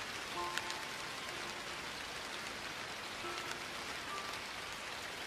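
Steady heavy rain, an even hiss with a few sharper drops, with a few faint brief tones about half a second in and again a little past three seconds.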